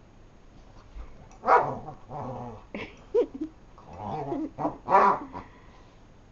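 Dogs play-growling and barking during rough play: several sharp barks with longer growls between them, from about a second and a half in until about five and a half seconds in.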